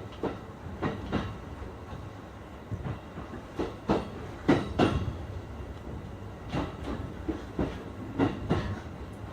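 E531-series electric train running, heard from inside the car: a steady rumble with its wheels clacking over rail joints in short pairs and clusters, the loudest pair about halfway through.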